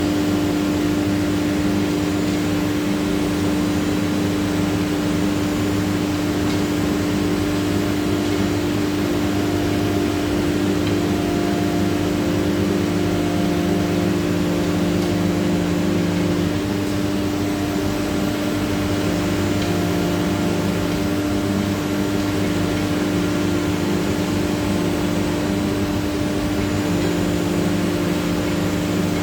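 Linear ATC CNC router running steadily while cutting a GRC panel, its spindle giving a constant hum over a steady rush of noise.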